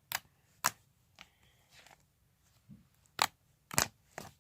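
Glossy white-glue slime being poked and squeezed by hand, giving about half a dozen short, sharp clicks and pops at irregular intervals.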